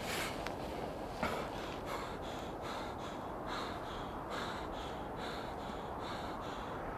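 A man's heavy, rapid breathing, short hissy breaths about two a second, as from exhaustion or injury. A couple of small clicks come in the first second or so.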